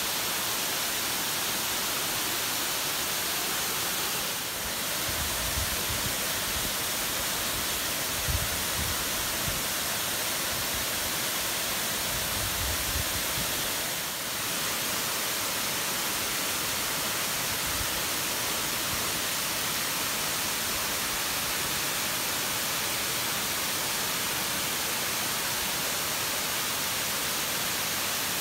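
Water overflowing a curved concrete dam spillway and falling into the pool below: a steady, even rush of falling water. A few low rumbles come and go in the middle.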